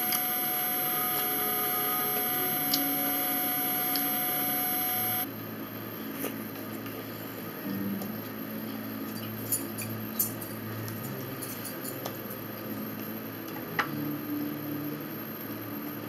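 Quiet eating at a table: faint chewing and mouth sounds with a few sharp little clicks, over a steady hum that cuts off about five seconds in.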